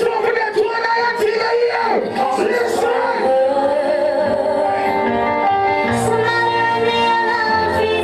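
Music with a sung vocal line, played loud through a sound system at a sound clash.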